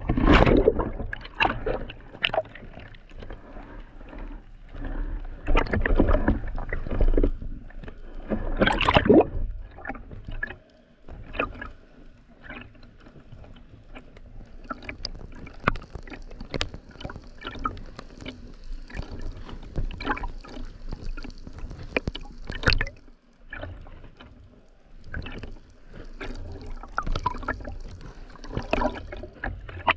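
Sea water sloshing and splashing around a speargun-mounted camera held at the surface as a spearfisher swims, with many short crackling clicks. The splashing is heaviest in the first ten seconds, in a few louder bursts.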